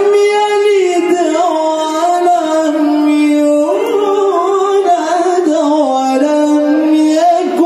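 Male qari's voice reciting the Qur'an (tilawah) through a handheld microphone: one unbroken melismatic phrase of long held, ornamented notes that step down in pitch about two seconds in, rise again about four seconds in, dip near six seconds and climb back near the end.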